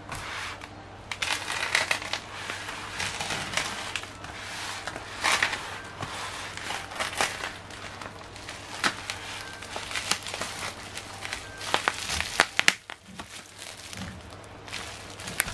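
Plastic stretch film and bubble wrap on a parcel crinkling and crackling as hands press and handle it, in irregular rustles, with a quick run of sharp crackles near the end.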